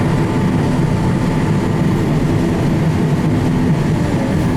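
Combine harvester running steadily while harvesting beans, a constant loud machine drone with no change in pace.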